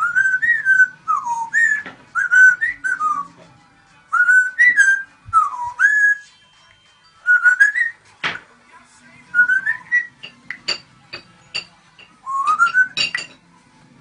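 African grey parrot whistling: bursts of short whistled phrases, each note gliding up and down, with brief pauses between the bursts. In the second half, several sharp clicks come in among the whistles.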